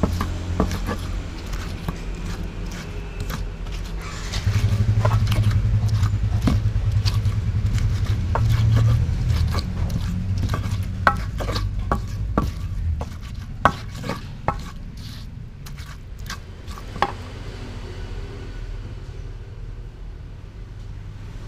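Pestle crushing and grinding chilies, shallots, garlic and tomato in a wide clay mortar: repeated sharp knocks and scraping, thinning out towards the end. A low steady hum sits underneath, louder from about four seconds in until about thirteen seconds in.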